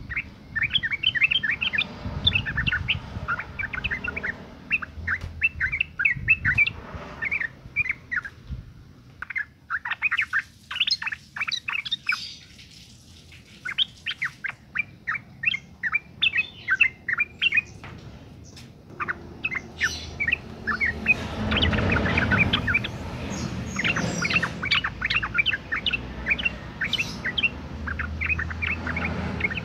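A female yellow-vented bulbul in breeding condition calling: runs of quick, sharp chattering notes with short pauses between them. This is the kind of call played to lure males into singing.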